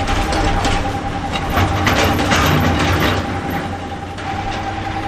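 Wheel loader's diesel engine running steadily while its raised bucket tips sand into a dump truck's steel bed, with a dense rattling of material pouring in during the first three and a half seconds.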